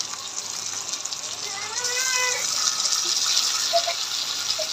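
Raw chicken pota (gizzards and offal) sizzling in hot mustard oil in a kadhai, a steady hiss that grows louder about two seconds in as the meat's moisture hits the oil.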